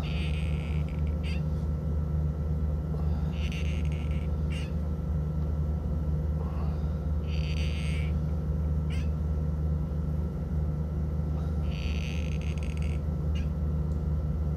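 Captains of Crush No. 2 hand gripper squeezed shut four times, about four seconds apart: each squeeze brings a high, roughly second-long squeak or strain sound, followed by a short click. A steady low hum runs underneath.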